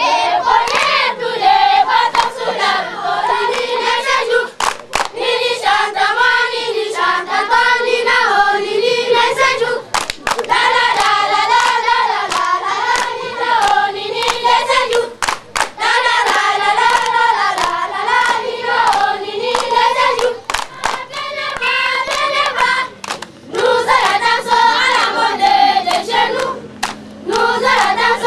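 A group of voices singing a repeating tune together, with scattered sharp hand claps.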